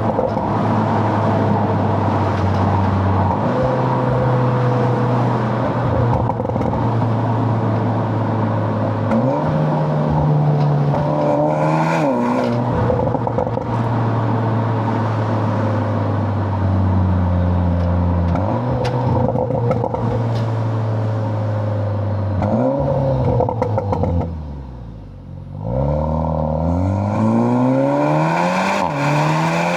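Seat Leon Cupra ST's four-cylinder engine, heard through a Milltek non-resonated cat-back exhaust, while the car is driven. The engine note holds steady and steps between gears. Near the end it drops low, then climbs hard in rising sweeps broken by quick upshifts.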